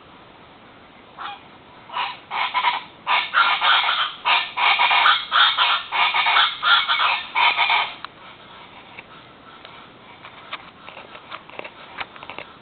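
A flock of chachalacas (guacharacas) in their dawn chorus, squawking in a loud, rhythmic run of harsh repeated calls. It starts about a second in and is loudest for about six seconds, then drops to fainter scattered calls near the end.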